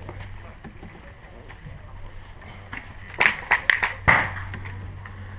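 Airsoft guns firing a quick string of about five sharp shots a little past the middle, over a steady low hum.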